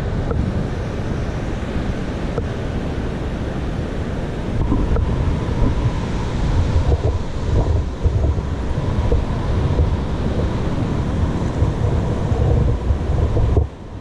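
Wind buffeting the microphone in gusts, with ocean surf breaking. The sound drops away suddenly just before the end.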